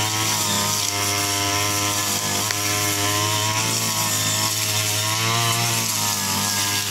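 Brush cutter (motorised grass trimmer) engine running steadily, its pitch wavering slightly up and down.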